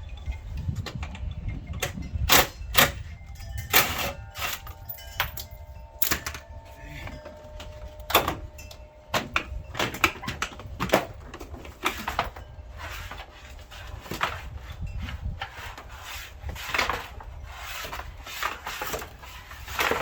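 Irregular metallic clicks, clinks and knocks of hand tools and fasteners being handled while working under a car, a few briefly ringing, over a low rumble.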